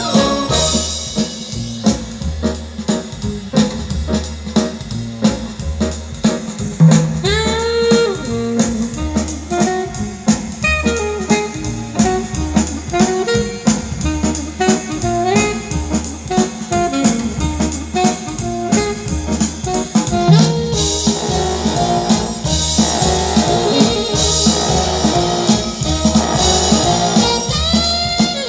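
Jazzy instrumental music with drums and a steady pulsing bass beat, played back through a pair of Bose 101 MMG speakers for a listening test.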